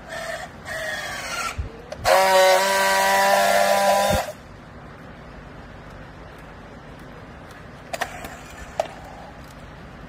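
Handheld battery strapping tool tensioning a plastic strap around a compressed bale, its motor whine falling in pitch in two short pulls as the strap tightens. Then comes about two seconds of a loud steady buzz as it friction-welds the strap seal, cutting off suddenly. Two sharp clicks follow near the end.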